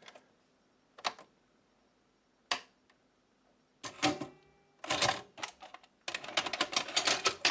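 Panasonic NV3000 portable VHS recorder being handled: a few separate clicks and knocks, then a rapid mechanical clatter from about six seconds in as the machine starts working again after being unplugged.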